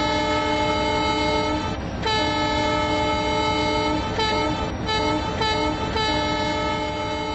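Train horn sounding a multi-note chord in a series of blasts: two long ones, then three short ones, then another long one, over a steady low rumble of a train.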